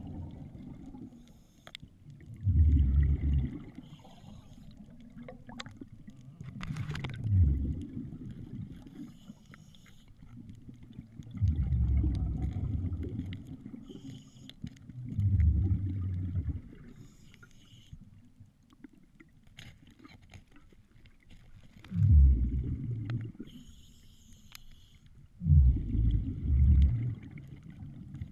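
Water gurgling and rushing in low bursts every few seconds, about six times, with faint bubbly hiss between them.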